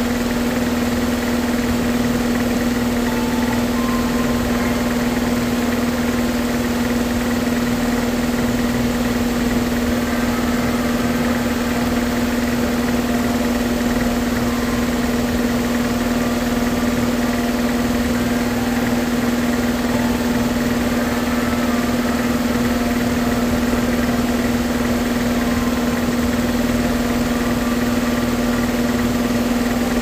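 Steady machine hum with one strong low tone that does not change, and faint short higher notes here and there.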